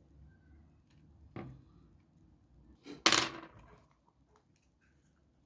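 A small hard tool clicking once, then a short louder scrape of about half a second on the phone's frame, as old adhesive is cleaned off around the edge.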